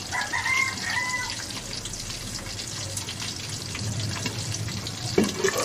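Pork pieces frying in hot oil under a glass pan lid: a steady sizzle with scattered crackles and pops of spattering fat, a few sharper pops near the end. The spattering is why the pan has to be kept covered.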